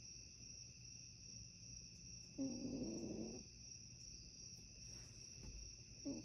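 Domestic cat snoring: one snore, about a second long with a buzzing pitch, a couple of seconds in, and the next beginning right at the end. A steady, faint high-pitched whine runs underneath.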